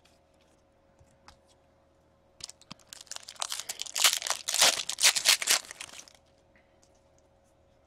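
The plastic wrapper of a pack of hockey cards is torn open and crinkled by hand. It makes a dense crackling that starts a couple of seconds in and lasts about three and a half seconds.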